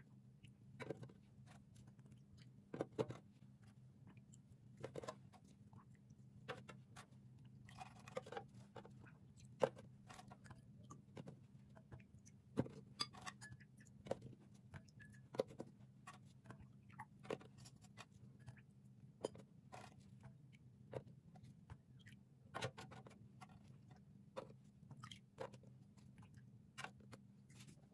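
Light taps and clicks, roughly one every second or two, as soaked ladyfinger biscuits are dipped in a glass bowl and laid one by one into a metal baking pan, over a faint steady low hum.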